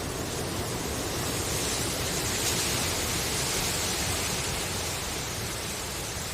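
Wind rustling through bamboo leaves: a steady, even hiss that swells a little in the middle.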